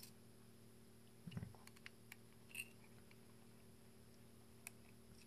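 Faint scattered clicks and light taps of a small eyeglass screwdriver working screws out of a Pentax DA 18-55mm WR zoom lens's plastic barrel, with a short cluster of clicks and a soft knock about a second and a half in.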